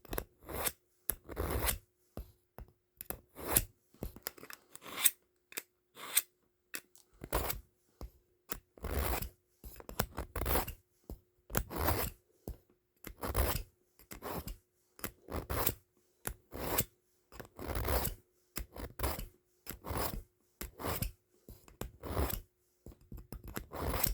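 Steel knife blade drawn repeatedly across a sharpener: short scraping strokes, about one a second, as passes are made to put an edge on the blade.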